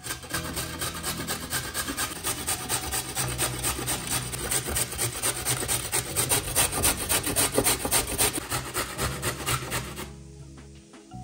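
A carrot grated on a stainless-steel box grater: a quick, even rhythm of rasping strokes, about five a second, that stops near the end.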